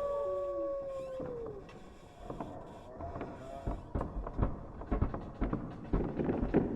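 A long wolf-like howl holds its pitch, then slides down and ends about a second and a half in. Irregular knocks and clatters follow, growing busier toward the end.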